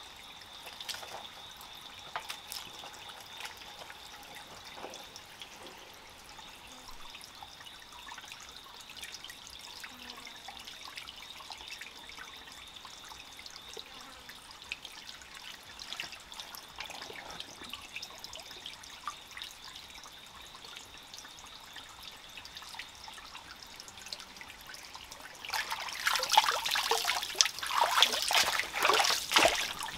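Water trickling and dripping as hands scoop mud and leaves out of a shallow pool. About 25 seconds in, rubber boots start wading and splashing through the water, much louder.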